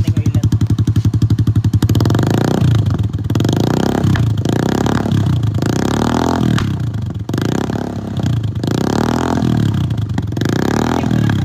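Kawasaki Fury 125 underbone motorcycle engine through an aftermarket clone Yoshimura Alpha exhaust, idling with an even pulse, then revved up and let fall back about six times in a row.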